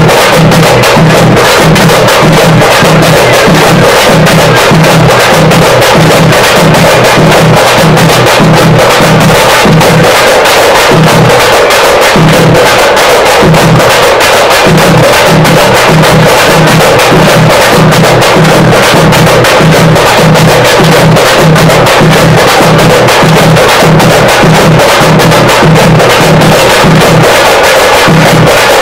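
A group of thappu (parai) frame drums beaten with sticks in a fast, dense, interlocking rhythm, very loud throughout. The deep beats drop out briefly about eleven seconds in, then resume.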